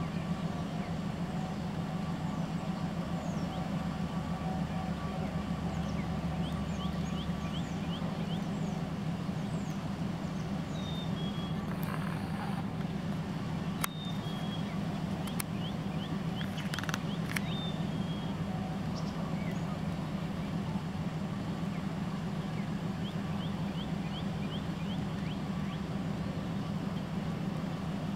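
A steady low mechanical hum throughout, with faint clusters of short, high chirps and a few sharp clicks in the middle.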